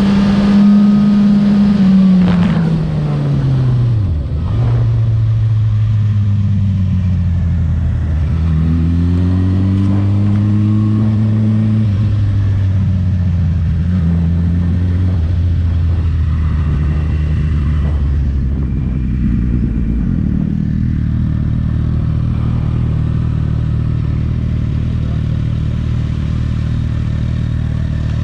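Suzuki GSX-R1000 K7 inline-four engine slowing down. The engine note falls steeply in the first few seconds, rises and falls a few times at low speed, then settles into a steady low note for the last several seconds.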